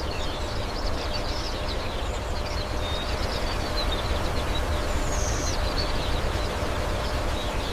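A steady rushing noise with small bird chirps heard over it.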